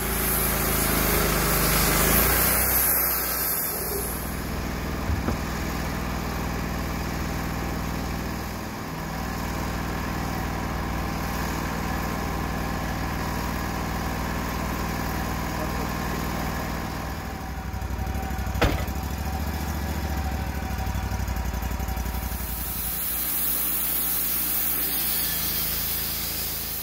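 Engine of a Wood-Mizer LT35 portable band sawmill running steadily, louder with a hiss for the first few seconds as the saw head finishes a pass along a white oak cant. A single sharp knock about two-thirds of the way through.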